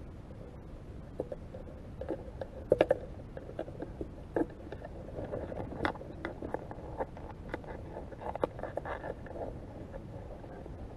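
Green shore crabs' claws and legs clicking and scraping on a crab trap's frame and netting, heard underwater: irregular clicks and knocks, the loudest cluster about three seconds in, over a low rumble of water.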